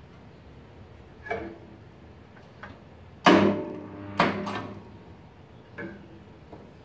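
Multipro spot welding machine firing several welds: short, sudden buzzes that die away quickly. A small one comes about a second in, the loudest about three seconds in, another a second after that, and a small one near the end.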